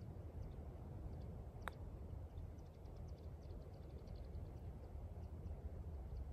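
Wind rumbling on the microphone. A single sharp click about a second and a half in is a putter striking a golf ball on the green.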